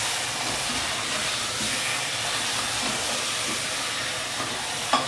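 Chicken and masala frying in an open aluminium pressure cooker over a gas flame, sizzling steadily as it is stirred with a wooden spoon.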